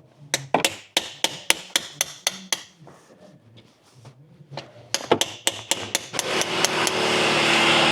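A hammer striking a pry bar to punch and widen a hole in a steel engine core plug: quick sharp metal-on-metal strikes, about four a second, with a short pause in the middle. About six seconds in, a steady hissing, humming machine noise starts and covers the rest.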